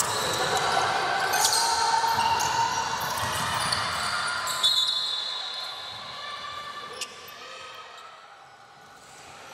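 Basketball game in a gym: a ball bouncing on the court, short high squeaks and a hum of voices from players and spectators. The echoing play dies down over the last few seconds.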